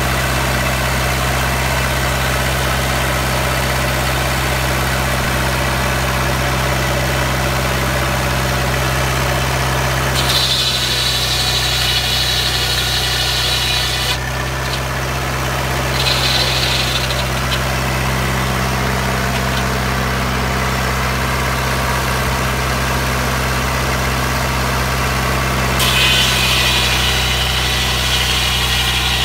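Hercules four-cylinder diesel engine running steadily, driving a Belsaw circular sawmill. A higher-pitched hiss from the saw joins about ten seconds in, briefly again around sixteen seconds, and once more near the end, typical of the blade cutting through a log.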